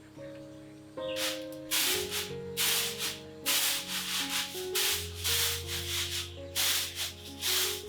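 Rhythmic rough scraping strokes, about one every 0.7 seconds, starting about a second in, over soft background music.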